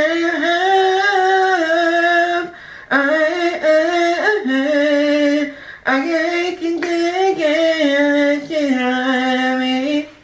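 A man sings an R&B melody in a high voice, mostly without words, in three long held phrases with short breaks between them.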